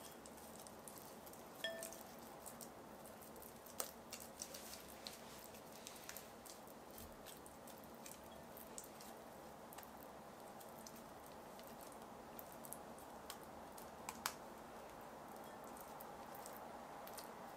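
Faint sticky squishing of soft glutinous-rice-flour and pancake-mix dough being pinched off and shaped by hand, with scattered small clicks and a brief ringing clink about two seconds in.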